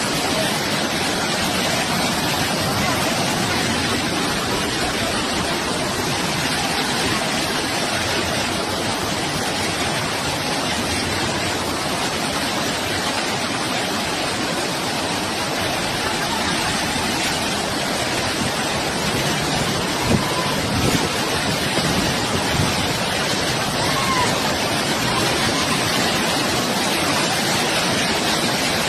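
Steady, even rush of floodwater, with a brief thump about twenty seconds in.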